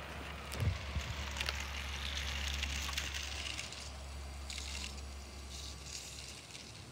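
Wind rustling garden foliage and buffeting the microphone, a steady low rumble under a crackly hiss, with a few light clicks in the first second and a half.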